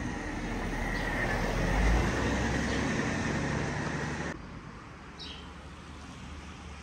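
A vehicle passing close by: a steady rushing noise that swells to its loudest about two seconds in, then cuts off abruptly after about four seconds.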